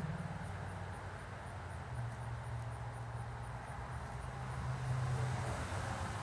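Low, steady mechanical rumble, like a motor running outdoors, swelling a little about two seconds in and again near the end.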